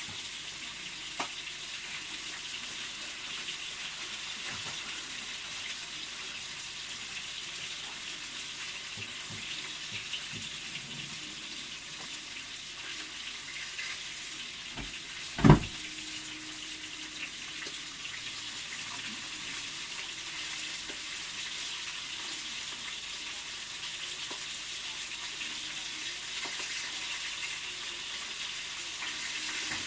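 Food frying in a pan, a steady sizzling hiss, with one sharp loud knock about halfway through.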